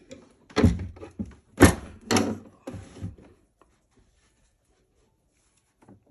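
A sewing machine being slid across a table and set down: about four heavy thunks and knocks over the first three seconds, the loudest about a second and a half in.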